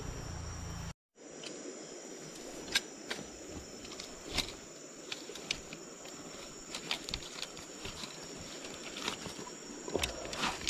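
Scattered light clicks and knocks as a bundle of fishing rods with spinning reels is handled, over a steady high insect drone. The sound cuts out completely for a moment about a second in.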